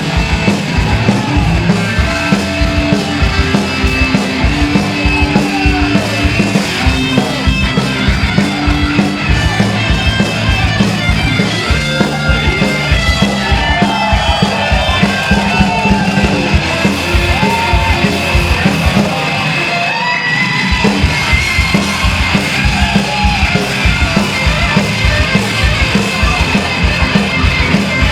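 Punk rock band playing live: distorted electric guitar, bass and fast, steady drums, with shouted vocals through the middle. The band drops out briefly about twenty seconds in, then comes back.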